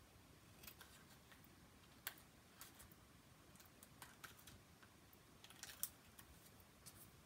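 Small craft scissors snipping paper, trimming an overhanging edge: a string of quiet, irregular snips, the sharpest about two seconds in and again near six seconds.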